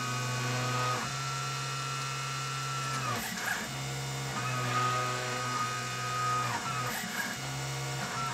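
Stepper motors of a KRMx02 CNC machine whining as the axes drive a hot-wire pyrography tip along the strokes of a letter at a slow feed of about 20 inches per minute. The steady tones run in stretches of a couple of seconds, with short breaks about three and seven seconds in, and the pitch slides down as each move slows to a stop.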